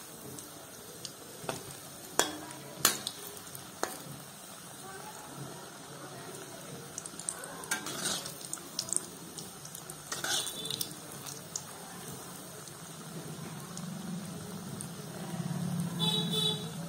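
Batter-coated vegetable cutlets deep-frying in refined oil in a kadai, the oil sizzling and crackling steadily. Sharp metal clicks come from a slotted spoon and spatula against the pan, the loudest two about two and three seconds in.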